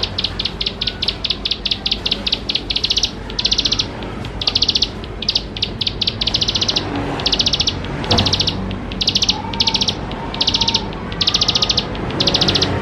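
Ciblek sawah (a small prinia) singing: rapid, high, buzzing trills in repeated half-second bursts with short gaps. A brief knock sounds about eight seconds in.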